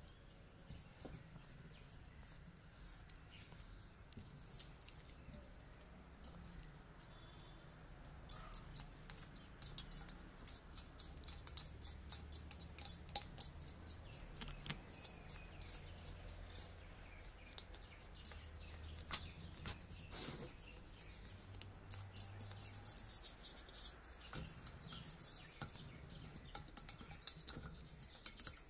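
A scouring pad rubbing rust off the metal fuel tank of a kerosene pressure lamp: scratchy scrubbing strokes with many small clicks.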